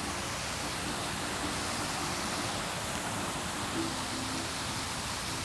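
Steady rushing of running water, an even hiss with no break.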